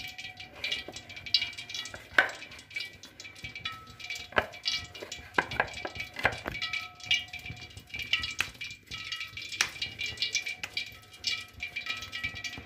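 Semolina dough being kneaded and squeezed by hand in a glass bowl: irregular soft slaps and taps, the sharpest about two seconds in and several around the middle. Quiet background music with a few repeating notes plays underneath.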